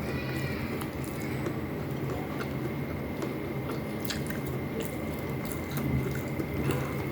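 Close-up wet chewing of a mouthful of vinegar-stewed fish (paksiw na tulingan), with many small mouth clicks and smacks.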